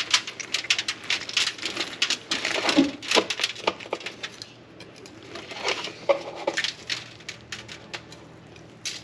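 Rapid clicks and taps from the handling of a smoked brisket during a bend test: dense for about four seconds, then sparser and fading.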